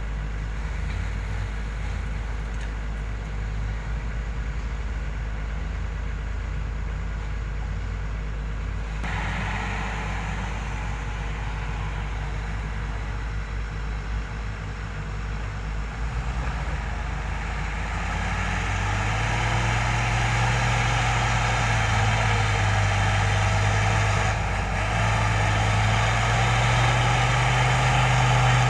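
Excavator's diesel engine running steadily, growing louder and higher in pitch about two-thirds of the way through.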